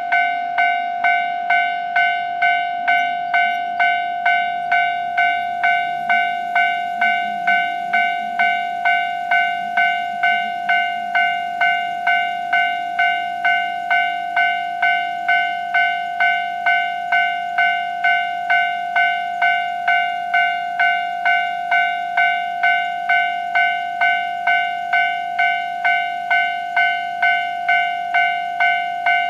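Japanese railway level-crossing warning bell sounding its alarm, a steady ringing tone struck again and again at about one and a half strikes a second, as it does while a train approaches.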